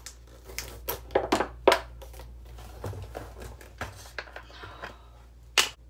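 Kitchen handling noise while measuring out an ingredient: an irregular run of small clicks and knocks from containers and a measuring cup, with a sharper knock about a second and a half in and another near the end.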